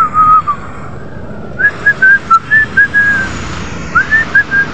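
A woman whistling a tune through pursed lips: a short phrase, a pause of about a second, then a longer run of clear notes.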